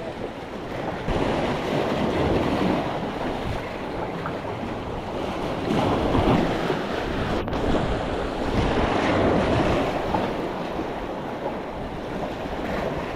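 Ocean waves washing in and swelling several times, with wind rumbling on the microphone.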